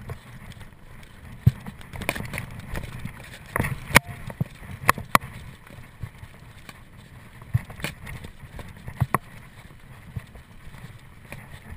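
Mountain bike ridden over rough dirt trail: a low rumble of tyres and frame with irregular clunks and rattles as it hits bumps, the sharpest knocks about four and five seconds in.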